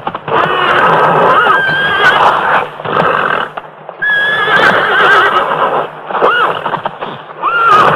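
A frightened horse whinnying repeatedly: several shrill neighs that rise and fall in pitch, with a few knocks of hooves. The horse is panicked and sweating at something unseen.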